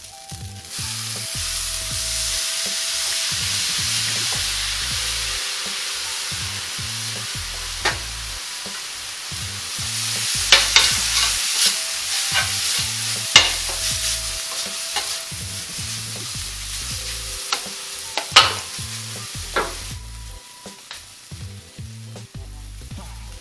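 Noodles sizzling on a hot flat-top griddle while a spatula stirs and scrapes them. Sharp scrapes and clicks of the spatula on the griddle come mostly in the middle and second half, and the sizzle dies down near the end.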